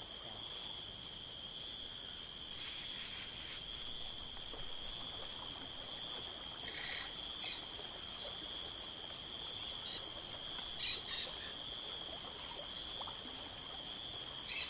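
Chorus of insects trilling steadily at a high pitch, with a fast, even pulsing. A few brief chirps come in around the middle and again near the end.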